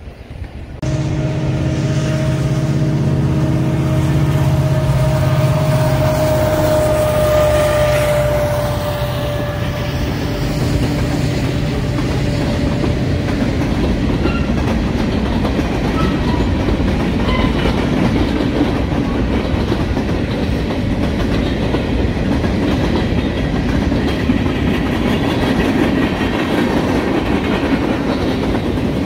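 Freight train passing at trackside, starting abruptly about a second in: boxcars, hoppers and tank cars rolling by with steel wheels clicking over rail joints above a steady rumble. Through the first dozen seconds a low hum with a steady higher tone runs under it, then fades.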